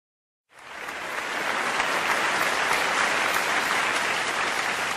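Audience applauding: the clapping starts after a short silence, builds over about a second and then holds steady.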